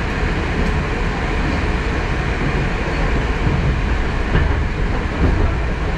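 Moscow Metro "Moskva" train running, heard from inside the passenger car: a steady, dense rumble of wheels on rails, with a few faint clicks.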